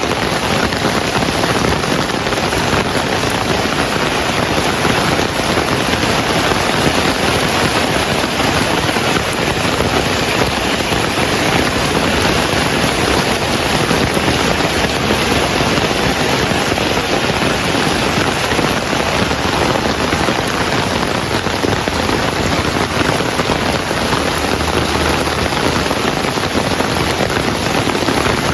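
Heavy rain falling steadily in an even, unbroken hiss.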